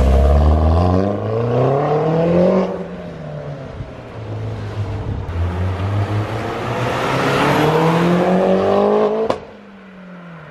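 Mini John Cooper Works GP's turbocharged four-cylinder engine revving hard as the car accelerates away, the pitch climbing for a couple of seconds, easing back, then climbing again for about three seconds. Near the end the sound stops abruptly, leaving a fainter falling engine note.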